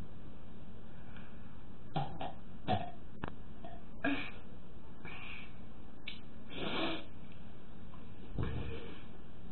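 A person burping on purpose: several short, separate burps, each under a second long, over a faint steady hiss.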